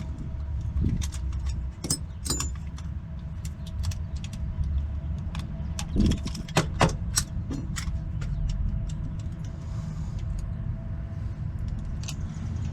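Irregular sharp metallic clicks and jingling of keys and lock tools working a door lock, over a steady low rumble.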